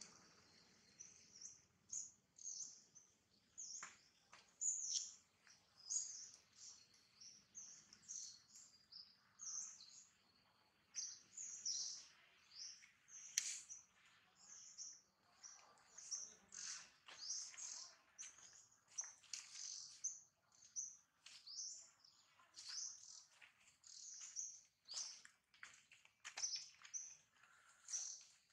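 Small birds chirping, with short high calls one after another, one or two a second throughout.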